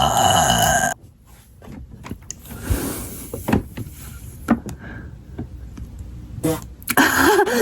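The end of a long, loud burp, which cuts off sharply about a second in. Quiet rustling and clicks follow, then a brief vocal sound near the end.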